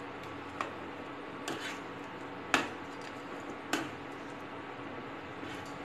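A steel spoon stirring fried cauliflower pieces through thick gravy in a non-stick frying pan, clicking against the pan about four times, loudest about two and a half seconds in.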